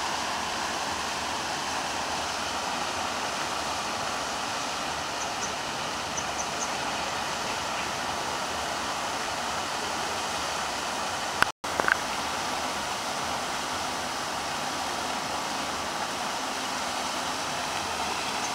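Steady rushing noise, like running water or wind, broken about two-thirds of the way through by a click and a momentary dropout.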